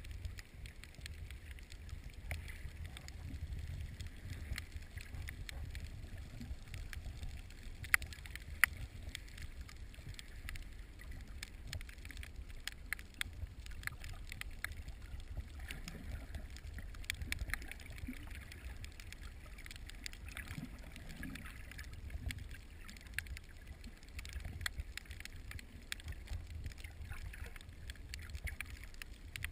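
Underwater sound heard through a submerged camera: a steady low rumble of water moving in rough surge, with scattered crackling clicks and two sharper, louder clicks about eight seconds in.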